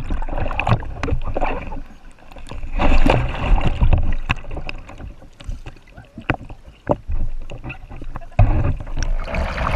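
Water splashing and sloshing around a kayak, in uneven surges with scattered sharp clicks and knocks.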